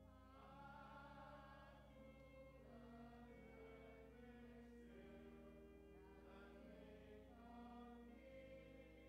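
Faint singing voices in slow phrases with long held notes, starting about half a second in, over a steady low sustained tone.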